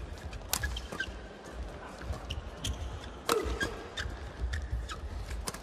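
Doubles badminton rally: a string of sharp racket-on-shuttlecock hits, with louder strikes about half a second in and just past three seconds in, short squeaks of shoes on the court floor, and a low steady hall rumble.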